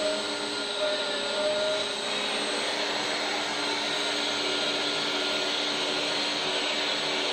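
Electric hydraulic pump of a 1/14-scale RC hydraulic excavator running with a steady whine over a hiss of motor and pump noise.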